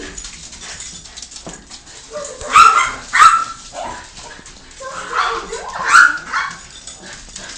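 Domestic dog barking: two pairs of loud, short barks, the second pair a couple of seconds after the first.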